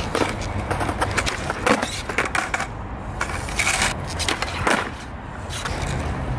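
Skateboard rolling on smooth concrete with a steady rumble of the wheels, broken by several sharp clacks and scrapes of the board and shoes.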